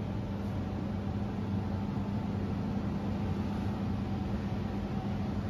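Steady low mechanical hum with an even hiss, the room tone of a fast-food restaurant's dining area.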